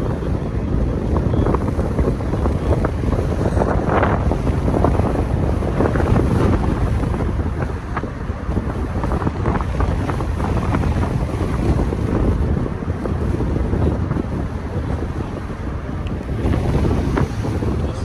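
Heavy wind buffeting the microphone over a low rumble of road noise while travelling along a street.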